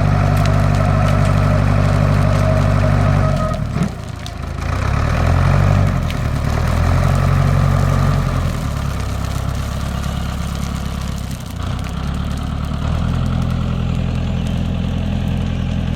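Manitou telehandler engine running, its speed dropping about three seconds in, briefly revving up and back down, then settling at a steady speed again, with a few sharp pops among the running: the popping sound the owner is trying to show.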